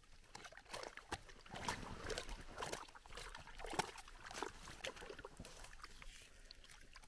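A pike being hauled by hand up through an ice-fishing hole: irregular splashing and scraping as the line comes in and the fish comes out of the water onto the snow.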